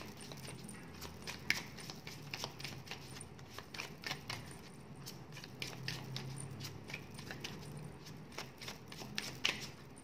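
Oracle cards being shuffled and handled by hand: a run of light, irregular clicks and flicks of card stock.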